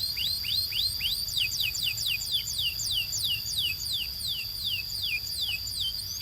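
Canary singing a tour of repeated downward-sliding whistled notes, about three a second, over a steady high held tone.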